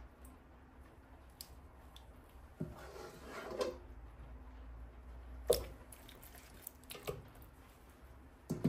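Lamb chops being laid into a biryani pot: a few soft, wet squishes and light knocks, the sharpest about five and a half seconds in.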